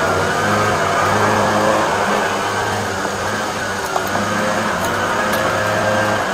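High-pressure drain jetter's engine running steadily, driving the jetting hose used to clear tree roots from a storm drain pipe.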